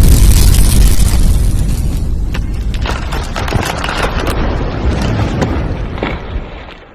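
Explosion sound effect: a loud boom at the start, then a long crackling rumble that fades out near the end.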